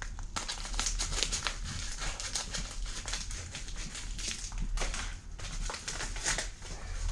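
Plastic packaging being unwrapped and handled, a dense run of crinkling and rustling with scattered crackles.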